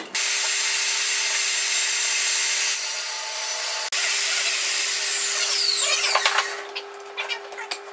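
Bench grinder running with a steady hum while a steel plane blade is ground against its wheel, giving a loud hiss. The grinding stops about six and a half seconds in, leaving the motor running with a few light clicks.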